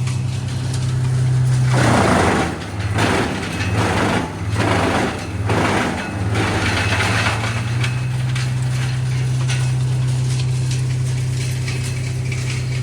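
A diesel engine running steadily, broken between about two and six and a half seconds in by four or five loud bursts of wood cracking and crunching, roughly a second apart.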